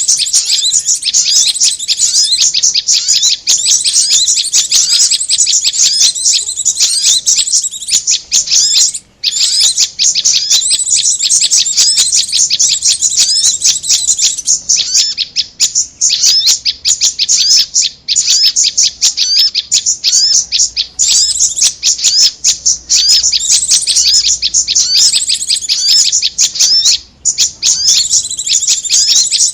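Bird-lure recording of small songbirds, korlap and prenjak (prinia), calling: dense, rapid, high-pitched chirps and trills that run almost without pause. There are short breaks about nine seconds in and again near the end.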